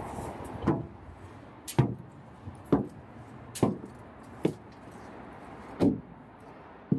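Footsteps on metal chequer-plate steps, seven short knocking treads about a second apart.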